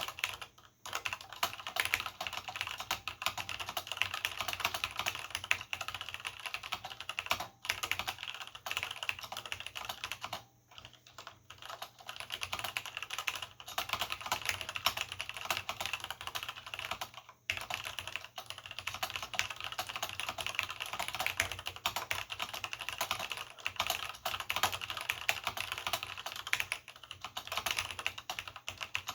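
Fast continuous typing on a vintage Cherry G80-0693/c mechanical keyboard with Cherry MX Black linear switches and original Cherry doubleshot keycaps: a dense stream of key clacks, with brief pauses about 7 seconds in, around 11 seconds and at about 17 seconds.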